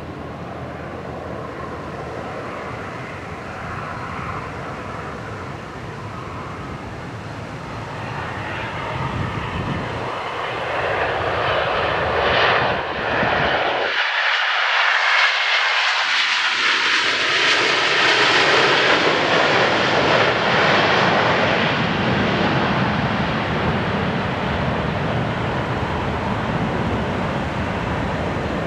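Gulfstream G550's twin Rolls-Royce BR710 turbofans as the jet lands and rolls out. The jet roar builds from about eight seconds in, is loudest through the middle, and eases slowly as the jet slows on the runway.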